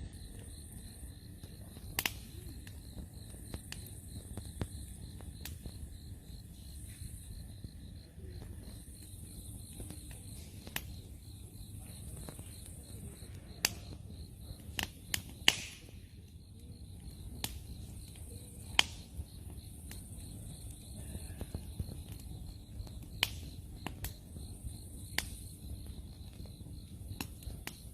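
Wood campfire crackling, with irregular sharp pops over a low steady rumble of the fire; the loudest pop, with a brief hiss after it, comes about fifteen and a half seconds in. Crickets chirp steadily in the background.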